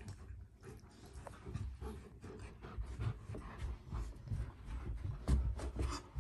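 An Alaskan Malamute and a golden retriever puppy play-fighting: irregular scuffling and soft bumps of bodies and paws, with a louder thump about five seconds in.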